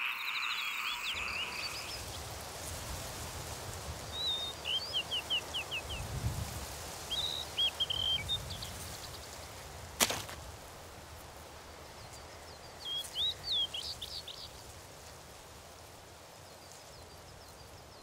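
Quiet outdoor ambience with small birds chirping in three short, quick runs, and a single sharp knock about ten seconds in: an acorn dropping onto wooden boards.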